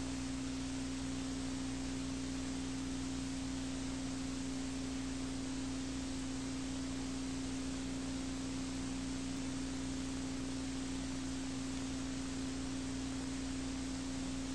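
A steady single-pitched tone, low-mid and unchanging, held throughout over an even background hiss.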